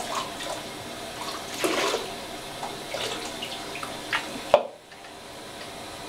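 Water running and splashing in a bathtub while a small dog is washed, with scattered splashes. There is a sharp knock about four and a half seconds in, after which the sound goes quieter.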